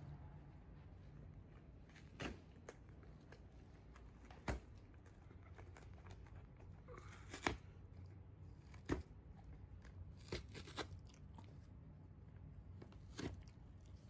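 Basset hound chewing and tearing a piece of cardboard: faint, separate crunches and rips every second or two.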